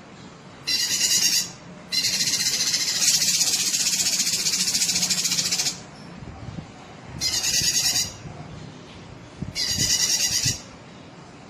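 Cucak kinoi singing in loud bursts of rapid, buzzy trilling. There is a short burst about a second in, a long one of nearly four seconds, then two shorter bursts with pauses between them.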